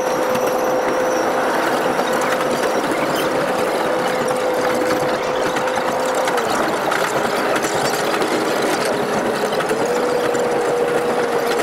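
Taiwan Sugar narrow-gauge railway train running, its sound sped up eightfold: a fast, even mechanical clatter with a steady engine tone. The tone dips lower about six seconds in and comes back up near the end.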